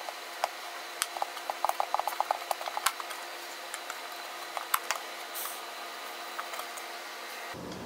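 Flat-blade screwdriver backing screws out of a metal L bracket set in a wooden cabinet: scattered light metal clicks, with a quick run of ticks about two seconds in.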